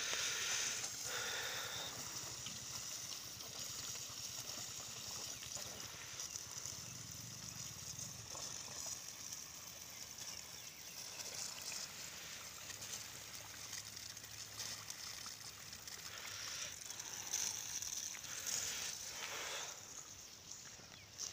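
Rain-pipe irrigation hoses spraying fine jets of water over a field: a steady hiss of spray.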